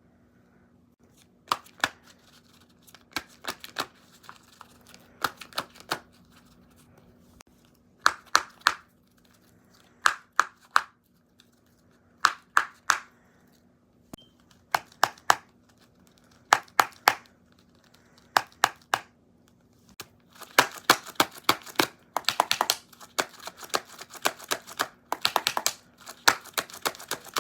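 Computer keyboard keys clicking in short clusters of two to four presses every second or two, turning into fast, continuous typing about twenty seconds in. A faint steady hum runs underneath.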